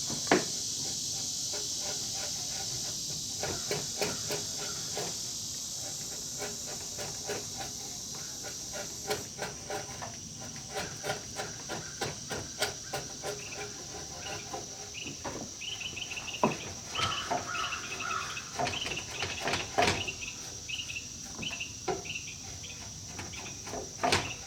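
Steady high insect buzzing over a run of short, sharp taps and scrapes from a 2-inch flat chisel working the face of a pine beam to take off the saw marks; the taps come thicker about a third of the way in.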